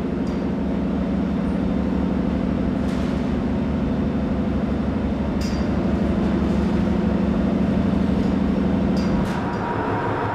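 Ship's engine room machinery running: a steady low drone with a fast, even pulse, and a few faint clicks. The drone's main hum eases slightly near the end.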